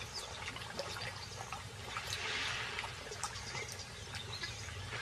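Impala drinking at a pool's edge: soft trickling and lapping of water with small wet clicks scattered throughout.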